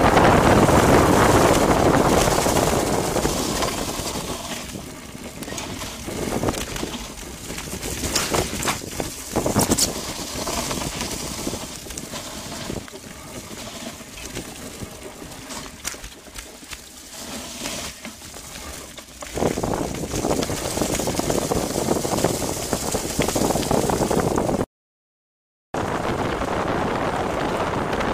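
Wind buffeting the microphone of a phone mounted on a BMX bike riding fast down a dirt trail, mixed with tyre noise on the dirt and scattered knocks and rattles from the bike over bumps. It is loudest at the start, eases off, grows loud again about two-thirds through, and cuts out completely for about a second near the end.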